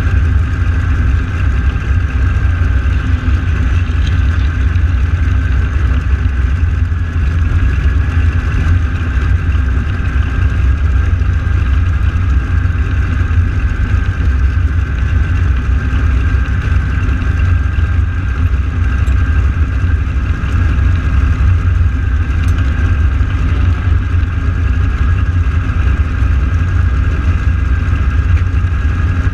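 Radial piston engines of AeroShell team T-6 Texan aircraft running steadily at idle on the ground after start-up, a loud, even, unchanging drone.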